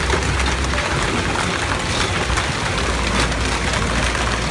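Heavy storm downpour: a dense, steady hiss of rain with many sharp ticking impacts, over a continuous low rumble.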